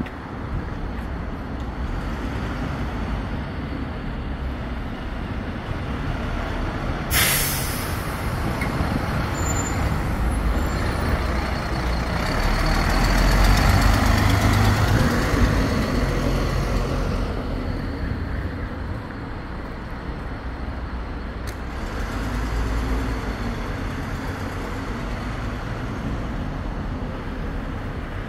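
A double-decker bus in city traffic: a short, sharp hiss of its air brakes a quarter of the way in, then its engine rumbles, growing loudest about halfway through as the bus goes by close and fading again.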